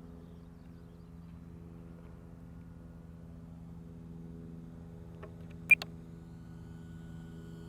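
Brushless electric motor and propeller of an RC plane running steadily in flight on 4S power, heard as a low, even drone. About three-quarters of the way through, a single sharp click with a short high beep cuts in, followed by a smaller click.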